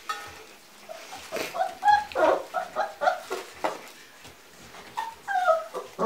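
Giant Schnauzer puppies yipping and whining in play: a busy run of short high-pitched calls about two seconds in, and a falling whine near the end.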